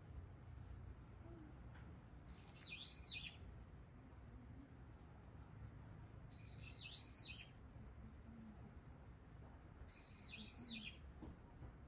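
A bird calling: three high-pitched calls about four seconds apart, each lasting about a second, over a faint low rumble.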